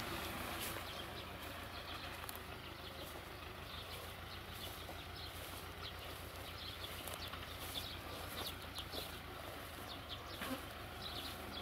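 Small birds chirping in short, repeated calls over the faint, steady low rumble of a tractor engine.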